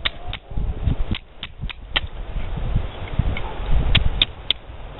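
Carbon-steel pocket knife blade striking flint: about ten sharp, irregular scraping clicks as it throws sparks toward char cloth, the loudest strikes near the end, over a low rumble.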